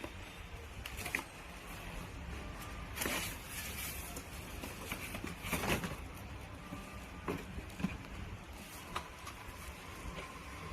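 Xiaomi 1A electric kettle heating water, with a steady low rumble and scattered ticks and crackles. Two brief surges of hiss come about three and five and a half seconds in.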